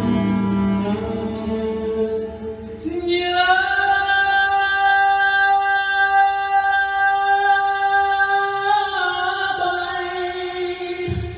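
Live band ballad: after a few seconds of band chords, a male singer holds one long high note for about six seconds over guitar and violin accompaniment. The note shifts a little near the end and the music falls away.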